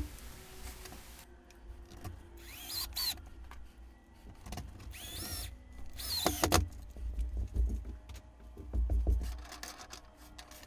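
Cordless Black+Decker drill driving screws through the base of a 3D-printed press into a plywood board, in several short runs, each with a rising motor whine.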